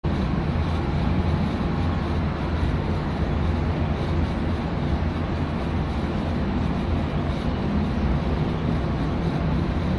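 Steady low rumble of a vehicle's engine running continuously.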